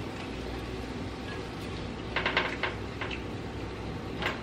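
Spatula clicking and scraping against a pan of peppers and onions as they are stirred: a quick run of sharp clicks about two seconds in, then single taps, over a steady low hum.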